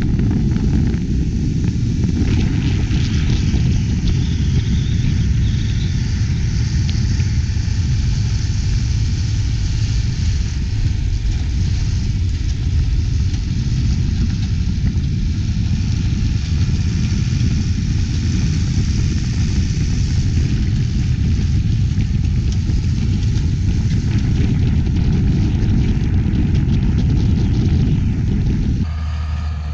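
A John Deere tractor's six-cylinder diesel engine pulling under load, with a New Holland 195 manure spreader's beaters running and throwing manure behind it; a heavy, steady rumble that drops off abruptly just before the end.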